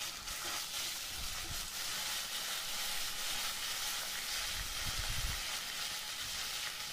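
Chana dal, mustard seeds, cumin and curry leaves sizzling steadily in hot oil in a kadai as a tempering is fried.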